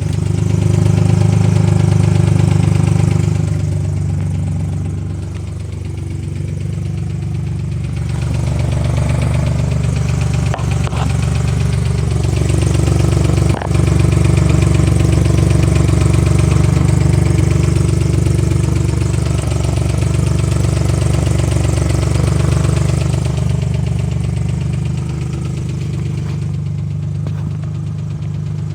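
2005 Ford Mustang engine running, its level rising and falling, with the ticking that the owner wonders may be an exhaust leak and says gets harder under acceleration. A sharp click about halfway through.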